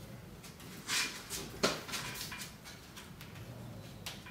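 A flat rope fastener being worked by hand around a metal rack pole: a few separate clicks and short scrapes from the strap and buckle against the tube, the sharpest click about one and a half seconds in.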